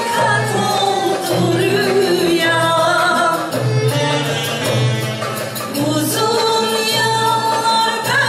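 A woman sings a Turkish art music song live into a microphone, accompanied by an instrumental ensemble. Under her melody, low accompaniment notes pulse about once a second.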